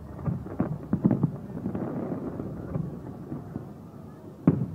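Aerial fireworks exploding in quick, irregular succession, with a louder cluster of bangs near the end.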